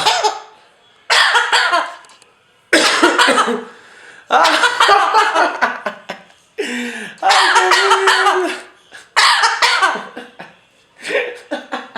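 A parrot imitating a human cough, coughing over and over in about six loud bouts with short pauses between them.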